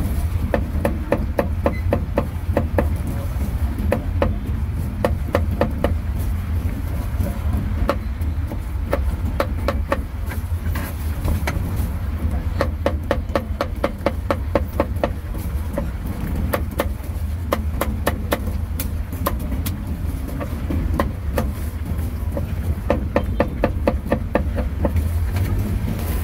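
Cleaver chopping cooked meat on a chopping board: quick runs of sharp, evenly spaced strokes with short pauses between them, over a steady low rumble of road traffic.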